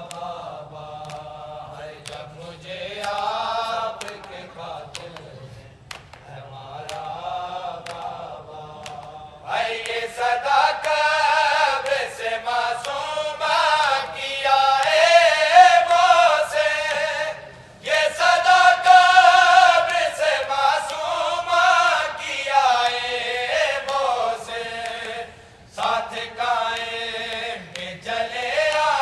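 A group of men chanting a noha, a Shia lament in Urdu, in unison with no instruments. The voices are quieter at first and grow louder and fuller about a third of the way in, with sharp regular beats under them.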